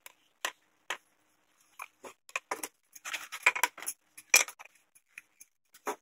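Small wooden pieces and hand tools being handled on a wooden workbench: a run of light knocks and clinks with short silences between them, busiest in the middle, with the sharpest knock a little past the middle.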